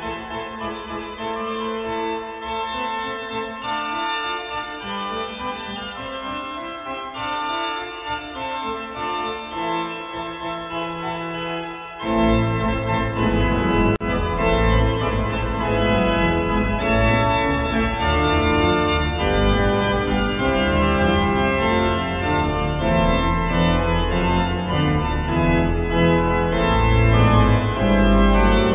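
Church organ playing a closing voluntary in sustained chords; about twelve seconds in, deep bass notes come in and it grows louder.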